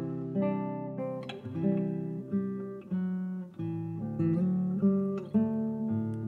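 Background music: a solo classical guitar playing plucked notes and chords, each ringing out and fading before the next.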